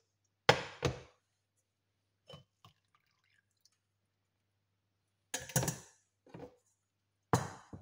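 Metal mesh tea strainer knocking and clinking against a glass cup and a stainless steel saucepan as it is lifted off the cup and set into the pan, with drips of strained tea. Two sharp knocks come about half a second in, a couple of light ones after, a cluster of clinks past the middle and one more near the end.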